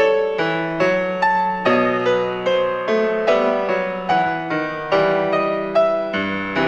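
Instrumental background music: a steady run of struck notes, about two or three a second, each fading away, over held low notes.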